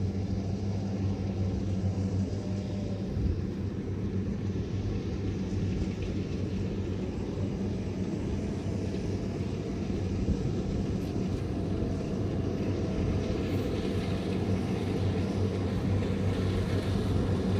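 Kubota DC60 combine harvester's diesel engine running steadily under load as it cuts rice, a constant low hum that grows a little louder near the end as the machine comes closer.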